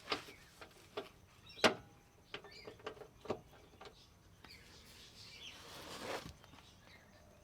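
Scattered sharp clicks and knocks of hand tools on car suspension parts, the loudest about a second and a half in, with faint bird chirps.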